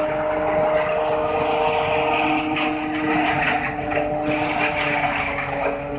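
Tractor driving a tractor-mounted elephant grass (napier) harvester as it cuts and chops standing grass: a steady machine whine over the running engine, with a rushing noise from the cut crop.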